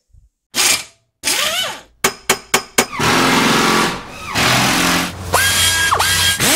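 Logo intro made of tool sound effects: a whoosh and a rising sweep, a quick run of about five sharp metallic hits, a second or so of dense power-tool noise, then a drill whine that rises and holds steady for under a second near the end.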